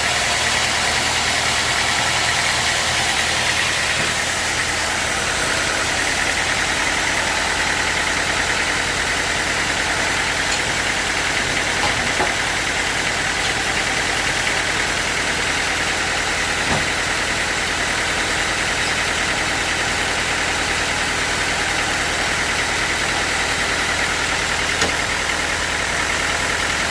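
Sawmill machinery running with a steady, unbroken engine-like hum, with a few faint knocks near the middle and toward the end.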